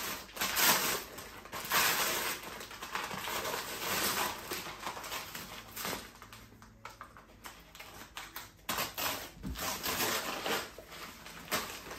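Irregular rustling and handling noises as the wrapping is opened and a rolled carpet is unrolled by hand.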